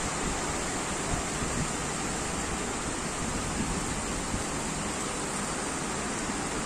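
Steady rain falling, a continuous even hiss with no breaks.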